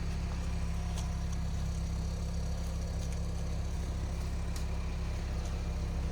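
A truck's engine running steadily with an even low drone.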